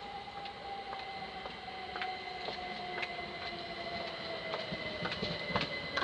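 A train approaching on the main line: a whine that slowly falls in pitch, with sharp clicks of wheels over the rails coming louder and more often toward the end as it draws near.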